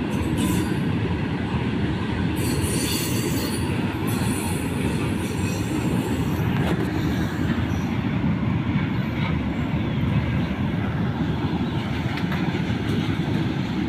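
Freight train of oil tank wagons rolling past close by: a steady, loud rumble and clatter of steel wheels on the rails, with a stretch of high-pitched wheel squeal about two and a half seconds in.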